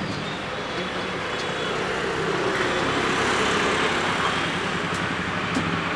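Street traffic noise: vehicle engines running steadily, growing louder from about two and a half seconds in and easing again near the end.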